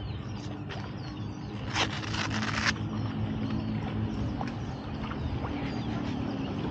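Outdoor ambience on open water: a steady low rumble with a faint hum, broken about two seconds in by a short rush of noise lasting about a second, with a few faint clicks.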